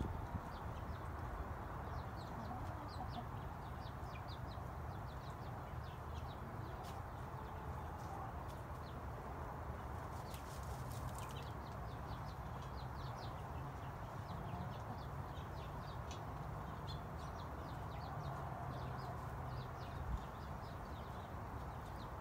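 Chickens clucking softly over a steady low background rumble, with many short high ticks throughout and a brief hiss about ten seconds in.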